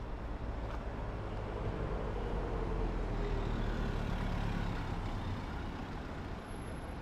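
Low engine rumble of passing street traffic, growing louder through the middle and easing off near the end.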